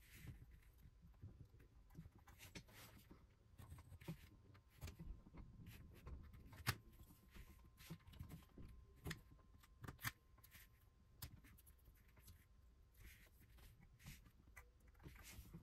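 Faint, irregular clicks and scratches of a hobby knife cutting masking tape against a cutting mat, and of small tape pieces being handled and pressed onto a plastic model locomotive.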